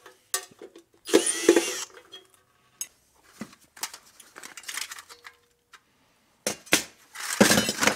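A steel scrap part being worked apart with tools: scattered metal clicks and knocks, a loud scrape about a second in, and a louder spell of clatter near the end.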